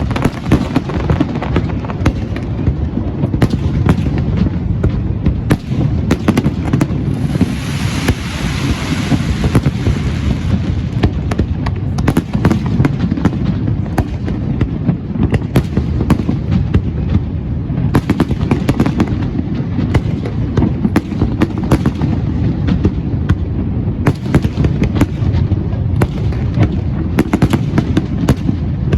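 Aerial fireworks going off in a rapid, continuous run of booms and sharp bangs. A hissing crackle rises over them from about seven to ten seconds in.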